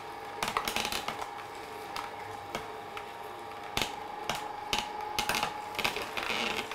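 Optimum 400 slow juicer running with a steady motor hum while its auger crushes pineapple skin, giving irregular cracks and clicks.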